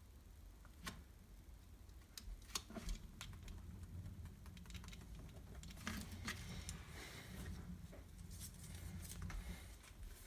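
Faint scattered clicks and taps with some soft scratching: hand work trimming and pressing foam seal material with a razor blade.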